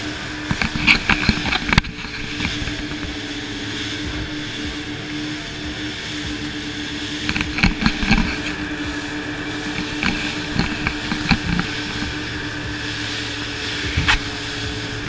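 Boat engine running steadily at cruising speed, with wind and water rushing past and occasional sharp thumps, likely the hull slapping the waves.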